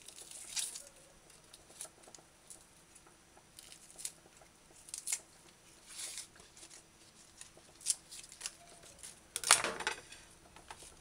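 Scallion leaves being stripped, torn and trimmed with a small knife: short crisp rustles and snaps every second or so, the loudest one near the end.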